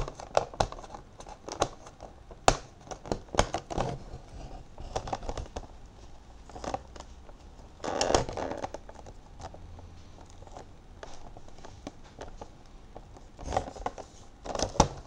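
Cardboard-and-plastic toy box being handled while the sellotape sealing it is picked and peeled: crinkling, scratching and sharp little clicks. They come in clusters in the first few seconds, about halfway through and near the end, with quieter handling between.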